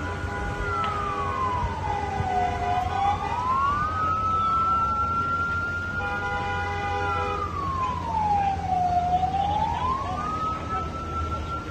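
Emergency vehicle siren sounding a slow wail: its pitch falls and climbs back twice, holding high in between, over a low traffic rumble. A second, steady tone sounds alongside it twice.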